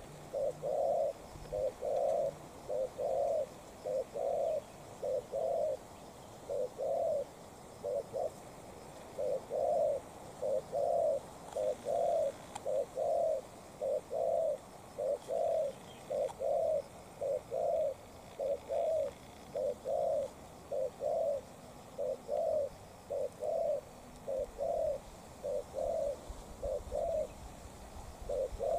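Spotted dove cooing: a long series of short, low coos, about two a second, broken by a few brief pauses.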